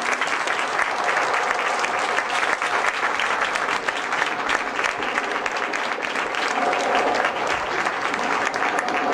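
Audience applauding, many hands clapping steadily at the end of a performance.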